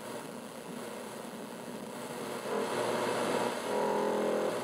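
Rushing hiss of a single-valve 6AU6 super-regenerative receiver from a small speaker, the sign that the detector is super-regenerating. About two and a half seconds in, a stronger received signal comes up through the hiss for a couple of seconds.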